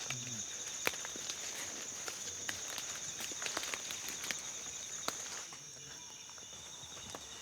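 Rainforest insects droning in a steady high-pitched band that thins out about five seconds in, over scattered crackles and snaps of footsteps in leaf litter and twigs.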